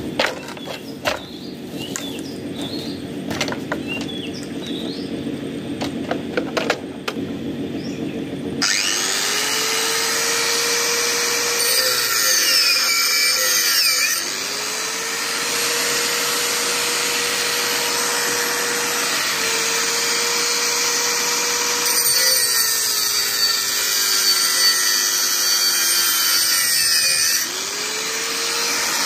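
Bosch GWS 600 angle grinder cutting rusty metal rods. It is quieter at first with scattered clicks; about nine seconds in it turns much louder and harsher as the disc bites into the metal, and the motor's whine sags in pitch each time it is pressed into the cut, then recovers.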